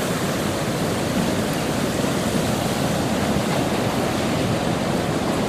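Sea surf breaking and turbulent water rushing at a rock-walled river mouth: a steady, even rushing noise with no separate events.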